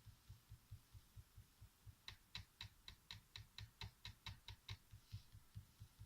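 HP Pavilion 15-cc101ng laptop touchpad being pressed or tapped over and over, faint dull taps about four or five a second. About two seconds in, a run of about a dozen sharp clicks joins them for roughly three seconds: the touchpad rattling (clattering) loose in its housing.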